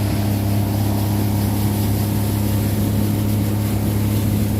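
Boat motor running at a steady speed, a constant low hum with a steady rushing hiss over it.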